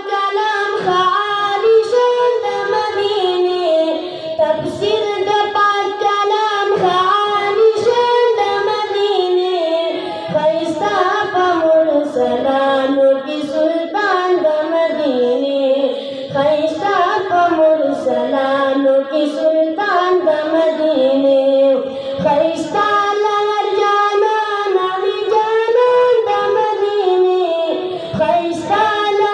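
A boy singing a Pashto naat solo through a microphone, in a gliding, ornamented melody with long held notes and brief pauses for breath.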